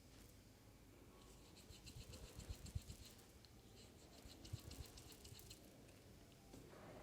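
Faint scratching and rubbing of hands on skin or hair during a massage, with a few soft thumps.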